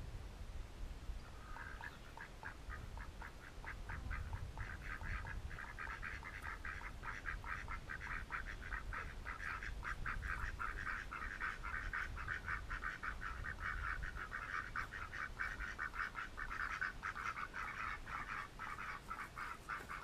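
Domestic ducks quacking softly in a long, quick run of short quacks, about four or five a second.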